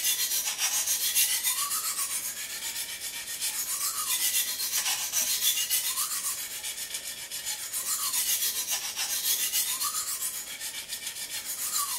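A 400-grit sharpening stone on a guided clamp kit scraping along the edge of a large steak knife, in even strokes about every two seconds, each with a faint rise and fall in pitch. It is grinding the second side of the roughly 25-degree bevel to raise a burr along the whole edge.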